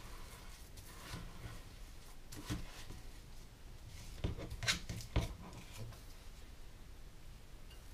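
Metal ice cream scoop scraping and digging into firm frozen ice cream in a plastic tub, with a few sharp knocks and clicks against the container in the middle, the loudest about five seconds in.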